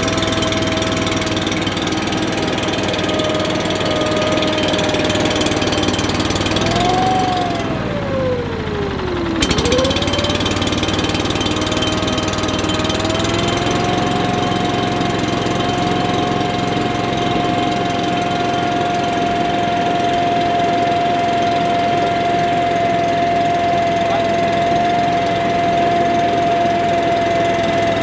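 UMount leaf blower's small engine running and warming up after a cold start. About seven seconds in its speed sags sharply, nearly stalling, then picks back up, and from about halfway through it holds a slightly higher, steady speed.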